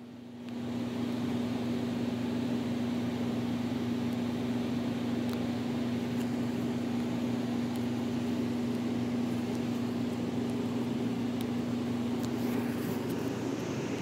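Steady mechanical hum with a low drone, fading in within the first second and then running evenly.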